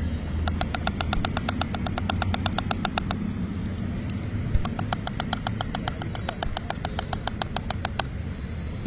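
Wire whisk beating eggs in a stainless steel mug: rapid metallic clicks against the mug, about seven a second, in two runs with a short pause in the middle. A steady low hum of traffic sits beneath.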